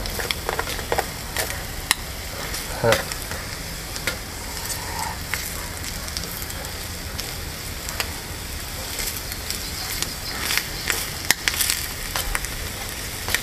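Bacon and scrambled eggs sizzling in a small frying pan over an alcohol burner. A utensil scrapes and taps against the pan again and again as the food is stirred.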